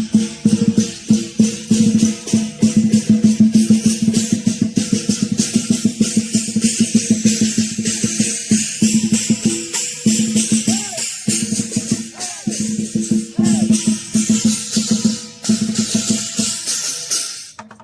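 Lion dance percussion: drum, cymbals and gong playing a fast, steady beat.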